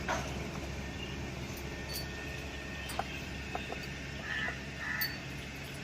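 Quiet background with a faint steady low hum, a few light clicks and taps, and two short faint chirps about four and five seconds in.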